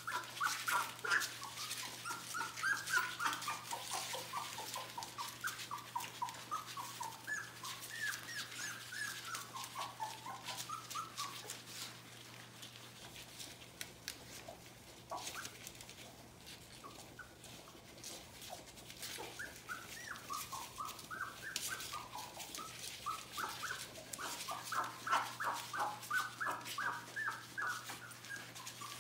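Three-week-old Border Collie puppies squeaking and whimpering as they nurse, many short high squeaks in quick runs that thin out through the middle and pick up again near the end. A steady low hum runs underneath.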